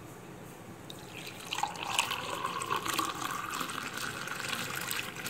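Thick blended orange juice pouring from a blender jar into a glass mug, starting about a second and a half in and running on steadily as the mug fills.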